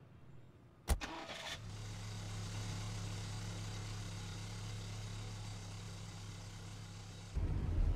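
A car door shuts with one sharp thud about a second in, then a Toyota Corolla Altis's engine starts with a brief crank and settles into a steady low hum as the car pulls away. Near the end a louder, rougher low rumble takes over.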